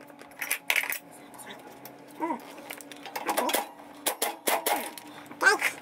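A run of sharp metallic clinks and knocks from hand tools and loose parts, with a voice murmuring in between.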